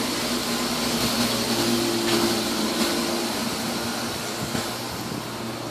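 A steady machine hum over a rushing background noise.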